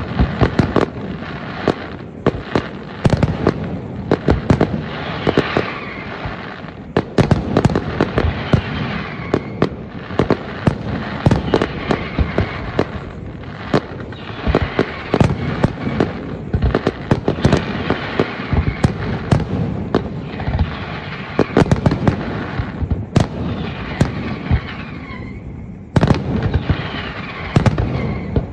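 Aerial firework display: shells bursting in a rapid, continuous run of sharp bangs over a steady din, with a sudden louder flurry near the end.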